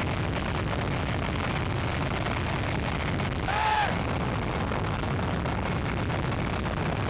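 Steady rushing roar of jet blast from a Boeing 747 freighter's engines, even in level throughout. About three and a half seconds in, a short rising-and-falling cry sounds over it.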